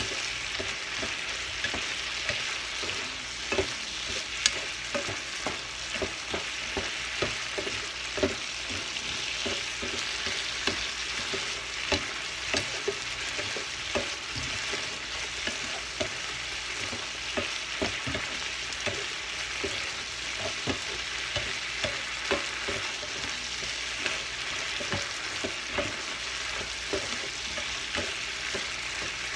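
Shrimp sizzling and frying in sauce in a frying pan, with a steady hiss, while a spatula stirs them, clicking and scraping against the pan at frequent, irregular intervals.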